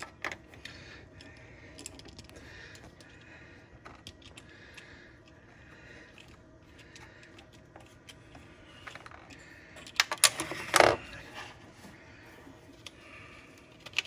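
Light, scattered clicks and taps of a socket wrench working loose a heater hose clamp, with a louder cluster of clicks about ten seconds in.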